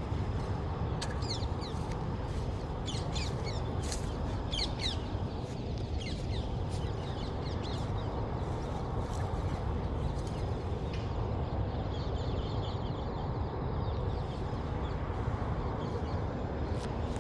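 Birds calling in short quick chirps, mostly in the first few seconds, over a steady low noise like wind on the microphone.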